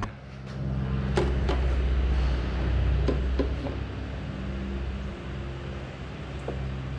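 A motor running steadily at low speed with a low, even hum that swells about half a second in and eases off a little past the middle. A few light clicks and knocks sound over it.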